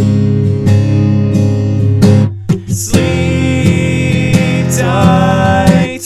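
Music: a song with strummed acoustic guitar, breaking off briefly about two seconds in, then a wavering higher melody line coming in over the chords.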